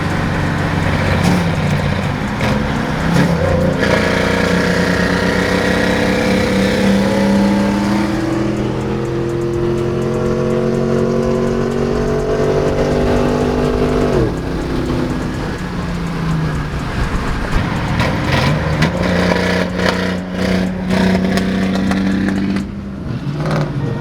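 Chevrolet Camaro engine pulling under acceleration: the revs climb slowly and steadily for about ten seconds, then drop suddenly about two-thirds of the way through, as at a shift or lift-off. The engine then settles and pulls again.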